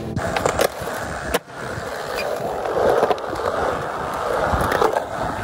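Skateboard wheels rolling along the ground, with a sharp clack of the board about a second and a half in and a few lighter clicks.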